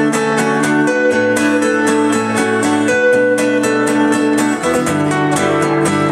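Acoustic guitar strummed in a steady rhythm, playing sustained chords with no singing: an instrumental passage of a live song.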